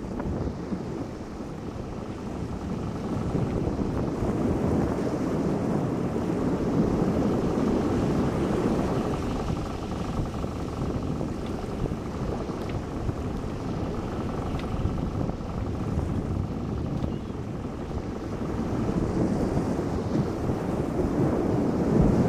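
Wind buffeting the microphone: a rushing, rumbling noise that swells and eases in gusts, with a stronger gust near the end.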